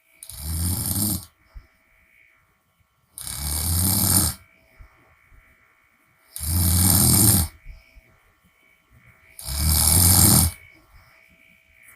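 A woman snoring with her mouth open: four loud, rattling snores about three seconds apart, each lasting about a second, with quiet breathing between them.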